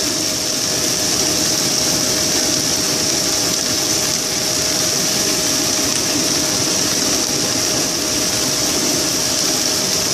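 Kitchen exhaust fan running steadily and quite noisy: an even whooshing noise with a constant hum tone.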